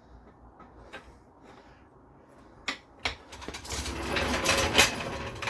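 Jack under the engine being released: two sharp clicks, then about two seconds of dense, rattling noise as the jack lets the engine down onto its new motor mount.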